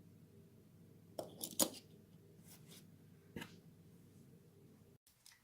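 Faint low hum with a handful of sharp small clicks and taps: a quick cluster a little over a second in, then single ones later. The sound cuts off abruptly near the end.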